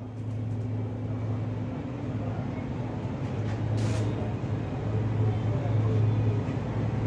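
Steady low hum with faint voices in the background, and a short hiss about four seconds in.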